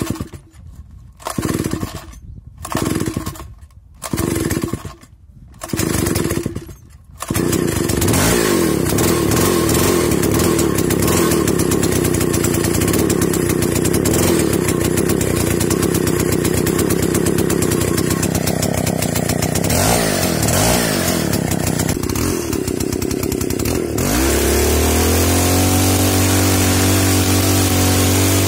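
Old two-stroke chainsaw being pull-started: five short bursts of engine sound, about every second and a half, before it catches about seven seconds in and runs continuously. Near the end its note drops and settles lower as the chain cuts into a tree trunk under load.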